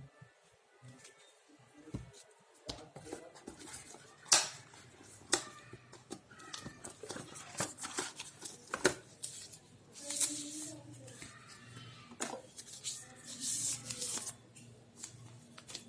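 Handling noises: a run of sharp clicks and taps, with bursts of rustling about ten and thirteen seconds in, as a phone and its box and packaging are handled.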